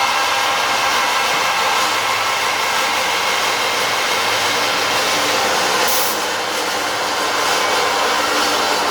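Industrial pipe-processing machinery running: a steady, loud hiss with several steady whining tones, and a brief sharper hiss about six seconds in.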